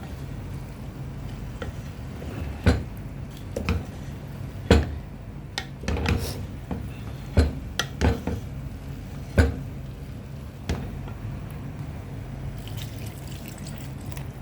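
Cooking sounds: a run of sharp knocks and clinks of utensils against a pan at irregular intervals, with liquid sounds, over a steady low hum.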